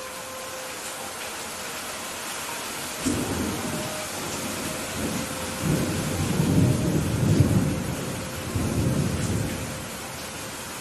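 Steady rain falling, with a long roll of thunder. The thunder rumbles in about three seconds in, swells in waves to its loudest past the middle, and dies away near the end.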